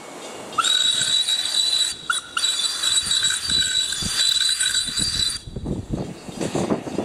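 Steam whistle of the English-built steam motor coach SMC1 'Coffee Pot': a steady shrill note that starts about half a second in, breaks briefly about two seconds in, then holds until it cuts off about five and a half seconds in.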